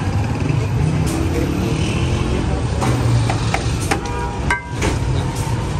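Busy street ambience of traffic rumble and voices mixed with music, with a few sharp clacks and short pitched tones about three and a half to four and a half seconds in.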